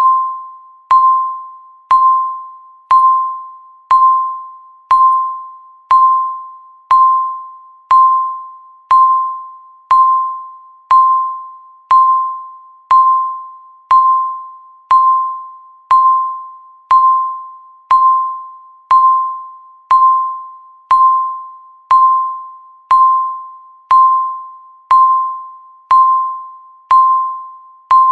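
A countdown timer's electronic beep sounding once every second, marking off each second of the countdown. Each beep is a single mid-pitched tone that starts sharply and fades away before the next.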